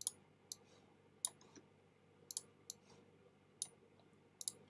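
Computer mouse clicking: about ten short, sharp clicks, some coming in quick pairs like double-clicks.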